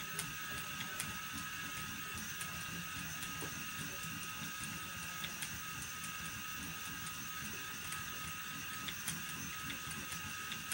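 Phoenix electric spinning wheel's motor and flyer running steadily with a constant whine over a low rumble, and irregular light clicks, while spinning short-staple cotton.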